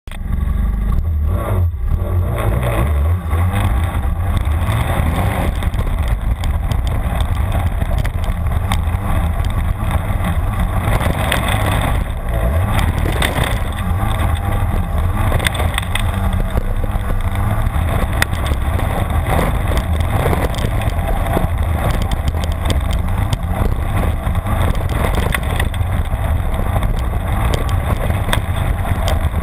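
Snowmobile engine running under load, loud and steady, with the track churning over dirt, heard close from a camera mounted on the sled's rear.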